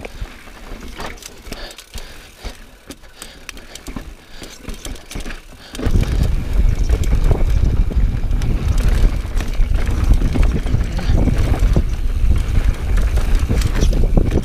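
Mountain bike rolling down rocky singletrack, its tyres and frame rattling over rock with scattered sharp clicks. About six seconds in, a loud, steady low rumble of wind and rolling noise sets in as the bike picks up speed.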